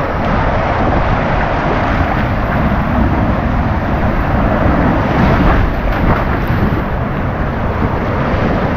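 Rushing water and wind buffeting a rider-held camera sliding down a water slide, a loud steady roar of spray and air.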